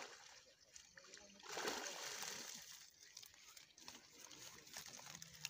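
Water splashing and pouring out of a mesh fish keepnet as it is lifted from the pond, with a rush about a second and a half in that trickles away.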